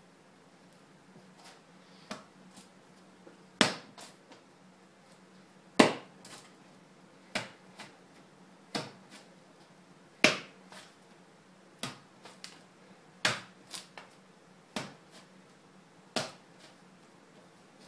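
Lump of moist clay being spiral-wedged by hand on a wooden bench: a sharp smack about every second and a half as each push of the clay lands on the wood.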